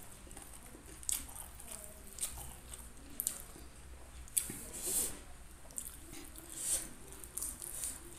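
Chewing and tearing crispy fried chicken by hand, heard as irregular short crunches and crackles with soft wet chewing between them.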